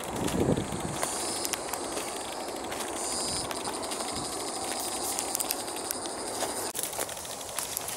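Hikers' footsteps crunching on a rocky, grassy trail, over a steady rushing background noise, with a short low rumble about half a second in.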